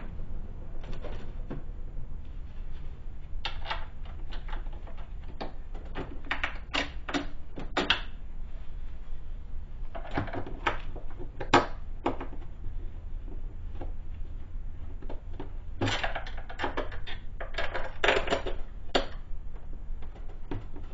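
Steel bolts clinking and tapping against the metal vise base and steel mounting plate as they are pushed through the bolt holes, in scattered clusters of short metallic clicks.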